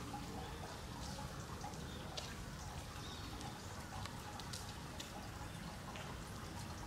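Steady trickle of running water with scattered small drips and ticks.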